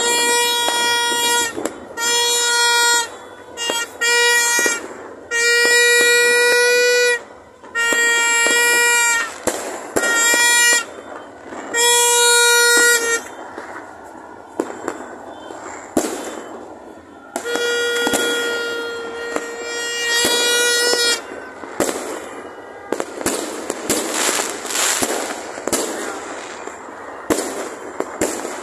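A horn sounding a string of long, single-pitched blasts, each about half a second to two seconds long, with fireworks popping and crackling underneath. In the second half the horn stops except for one more long blast, and fireworks bangs and crackling take over.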